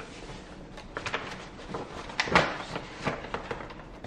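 Containers being handled while refilling flour: a scatter of light knocks and clicks, with one louder, short rustling scrape a little over two seconds in.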